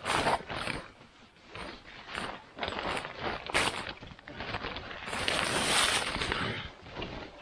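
Tent fabric rustling and scraping in irregular bursts as the tent's door is being fitted, with a longer, hissier rustle about five seconds in.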